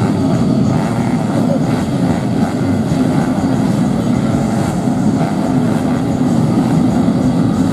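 Four-stroke underbone racing motorcycles running at high revs, a dense steady engine drone.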